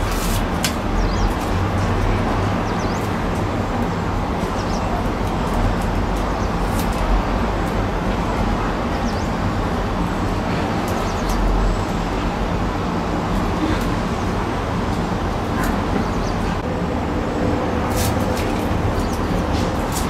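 Steady low rumble and hiss of background noise, with scattered short crackles and clicks of tape being torn, handled and pressed onto a flexible exhaust duct.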